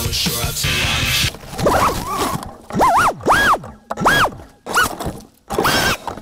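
Rock music cuts off about a second in; then an FPV freestyle quadcopter's brushless motors whine in short throttle bursts, each pitch rising and falling again, five or six times in a row.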